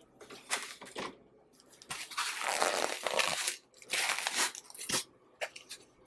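Intermittent crinkling and rustling from hands handling something out of sight, in several bursts, the longest lasting about a second and a half from about two seconds in.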